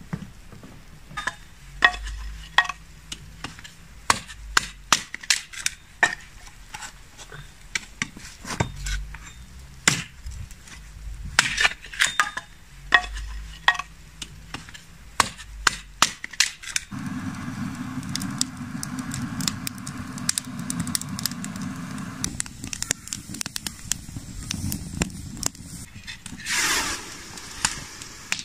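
Hard wooden knocks and clatters, many over the first half, as split firewood logs are handled. Then a steady rushing noise for several seconds, and near the end a brief loud hiss with a falling sweep from the hot, steaming cast-iron kazan.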